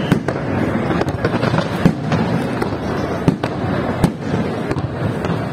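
Aerial fireworks display going off: a dense, continuous crackling broken by several sharp bangs, the loudest of them about two, three and a half and four seconds in.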